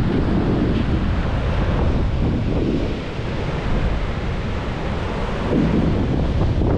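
Wind buffeting the microphone over the steady wash of ocean surf breaking on a sandy beach.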